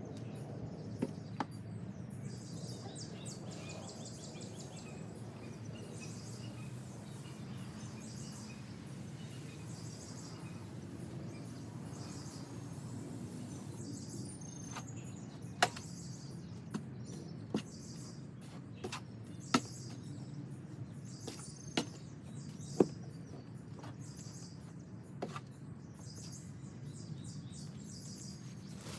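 Outdoor background noise: a steady low rumble with faint bird chirps, and several sharp clicks or taps in the second half.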